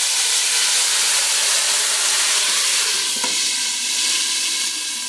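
Steady hissing noise with a few faint ringing tones, slowly fading, then stopping abruptly.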